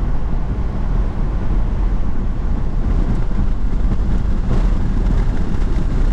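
Tornado wind buffeting the vehicle and the microphone: a loud, steady low rumble, with a few faint clicks partway through.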